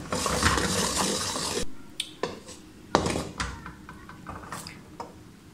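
A wooden spatula stirs and scrapes through boiling jaggery syrup in an aluminium kadhai, a dense scraping sizzle for about a second and a half. A few sharp knocks and clinks of the spatula against the pan follow. The syrup is still being cooked short of the brittle, hard-crack stage, as it still pulls into a thread.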